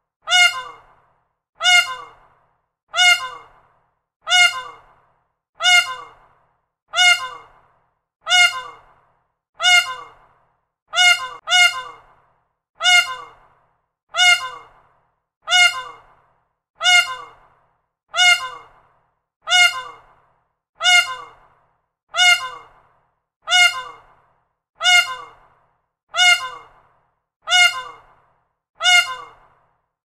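Peacock calling: a loud, harsh call repeated at an even pace, over twenty times, each call dropping in pitch at its end.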